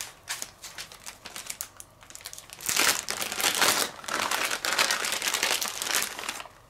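Plastic bag of grated cheese crinkling and rustling as it is handled and opened, faint at first and loudest from about three seconds in until shortly before the end.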